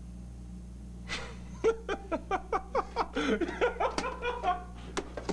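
A man laughing: a quick run of short bursts starting about a second in, over a steady low electrical hum.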